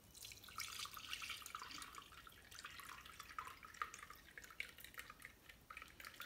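Hot melted ghee (clarified butter) being poured from a pot through cheesecloth into a jar: a faint, continuous trickle with many small drips and splashes, thinning out near the end.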